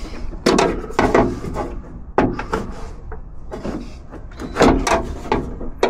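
Hands working on the door latch parts inside a Jeep door: irregular knocks, clicks and rubbing, about half a dozen sharp knocks spread unevenly.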